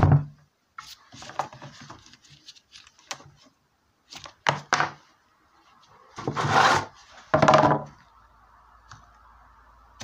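Partner Formula 400 chainsaw being handled and shifted on a wooden board: scattered knocks and clunks of its plastic housing and bar, with two longer scraping noises about six and seven seconds in.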